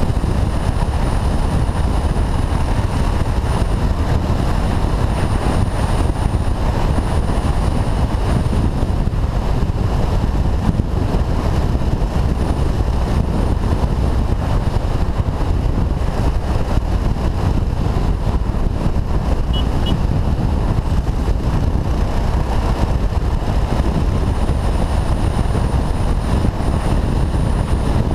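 Motorcycle riding at road speed heard from a helmet-mounted action camera: steady wind rushing over the microphone, with the bike's engine running underneath.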